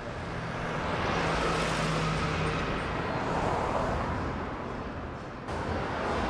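A car driving past on a road: engine hum and tyre noise swelling over a couple of seconds and easing off, over general traffic noise, with the noise changing abruptly near the end.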